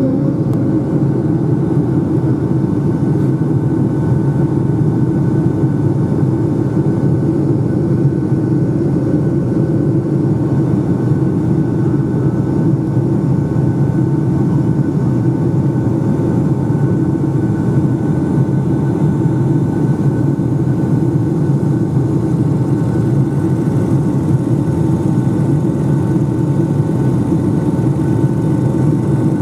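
Boeing 757-200's jet engines and rushing airflow heard from inside the cabin during the climb: a loud, steady, deep drone with a few faint steady whining tones above it.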